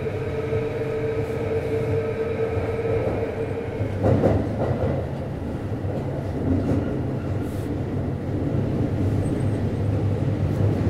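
Kintetsu 3220 series subway train running, heard from inside a motor car: a steady whine over low wheel and track rumble. About four seconds in, the whine drops out with a short surge of noise, leaving the plain running rumble.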